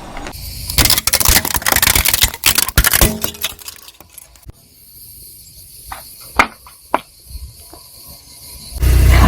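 Objects crushed under a car tyre crunching and crackling in a dense run for about three seconds, then a few scattered sharp snaps. Just before the end a loud low rumble starts.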